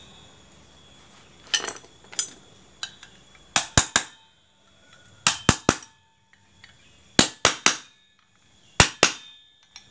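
Sharp metal-on-metal taps, mostly in quick groups of three about every one and a half to two seconds: an 8 mm wrench being hammered against the plate of a Honda Beat's CVT clutch assembly to seat it after new clutch linings and springs were fitted.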